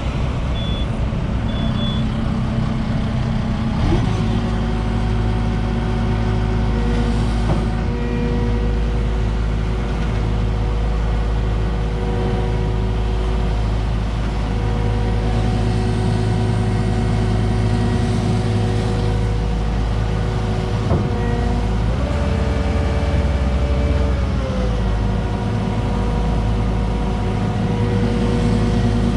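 Diesel engine of a compact construction machine running steadily. Its engine note steps up about four seconds in, then rises briefly and settles back near the end.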